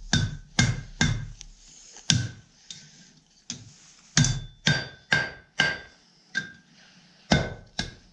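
Blacksmith's hammer striking a steel horseshoe hoof pick on an anvil, about two blows a second with a brief lull about two seconds in, each blow leaving a short metallic ring, as the pick is hammered into its bend.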